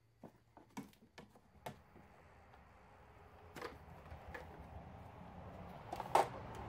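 Scattered sharp clicks and knocks of plastic engine-bay parts being handled as the mass airflow sensor connector is unplugged and the air cleaner box is worked open. The loudest knock comes near the end, over a low rushing background noise that builds from about two seconds in.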